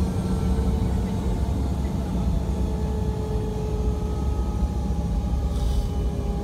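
MD-90's rear-mounted IAE V2525-D5 turbofan heard from inside the cabin beside the nacelle while the airliner taxis at low power: a steady low rumble with a faint whine over it. A short hiss comes about five and a half seconds in.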